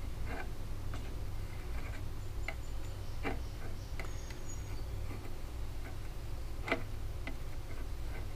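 Soldering iron tip melting a metal screen patch into a plastic taillight housing: faint, irregular small clicks and crackles, over a steady low hum.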